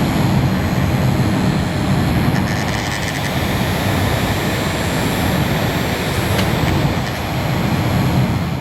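A small fan blowing steadily, giving an even rushing noise with a low rumble.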